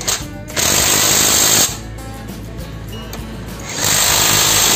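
J-LD cordless impact wrench hammering on a diesel engine's nuts in two bursts of about a second each, the first just after the start and the second near the end.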